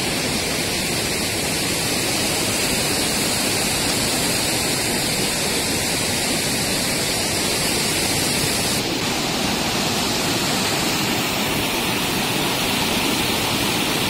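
Steady rush of water tumbling over rocks at a waterfall and river rapids, with a slight change in its tone about nine seconds in.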